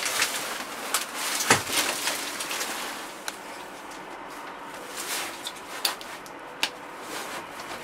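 Rustling handling noise, then a few separate sharp clicks and knocks, the loudest knock about one and a half seconds in. These are the sounds of a hand working the forward-neutral-reverse shuttle lever and its switches in a backhoe loader's cab.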